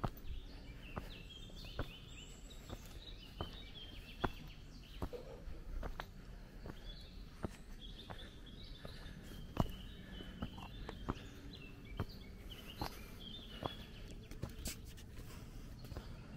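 Footsteps on a dirt path strewn with leaves, a steady walking pace of about one step every 0.8 seconds. Small birds chirp and sing in the trees around.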